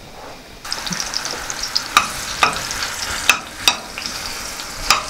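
Chopped onion sizzling in hot sunflower oil in a frying pan. The sizzle starts abruptly about half a second in, and a utensil knocks against the pan several times as it is stirred.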